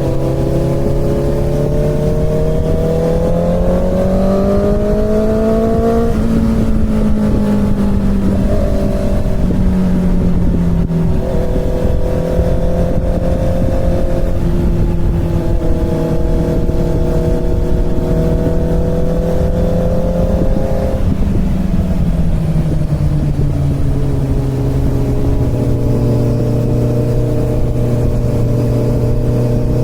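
Inline-four sport motorcycle engine under way. It climbs in pitch through the revs for the first few seconds and steps through several changes, then holds a steady cruise. About 21 seconds in it eases off and settles to a lower steady note, with a constant rush of wind and road noise underneath.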